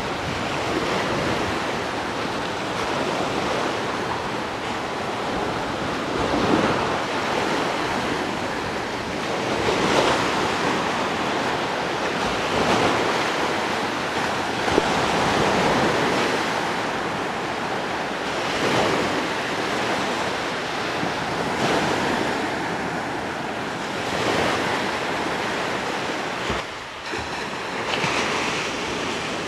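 Small Gulf surf breaking and washing up a sandy beach, swelling and easing every few seconds, with wind buffeting the microphone.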